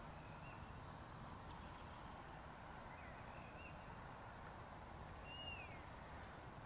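Faint open-air ambience under a steady low rumble, with a few faint bird chirps: short calls early on and about three seconds in, and a longer falling whistle about five seconds in.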